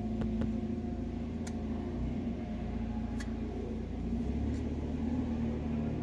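Steady low machine hum, with a few faint metallic clicks in the first few seconds as the spark arrestor screen is pressed back into the chainsaw muffler.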